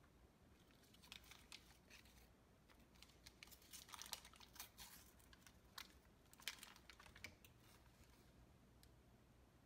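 Faint, irregular crinkling and rustling of a paper butter wrapper being handled and unwrapped, as a string of short rustles that die away near the end.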